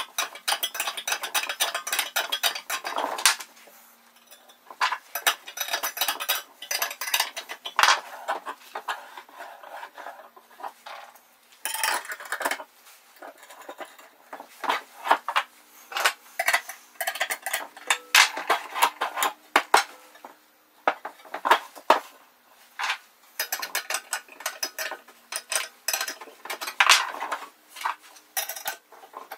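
Wrench tightening bolts on a steel square-tubing and flat-strap frame: runs of quick metallic clicks and clinks, with short pauses between.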